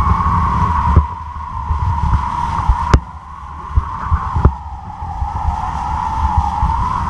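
Wind buffeting a camera mounted on a kite line, with a steady, slightly wavering whistle running through it and a few sharp knocks.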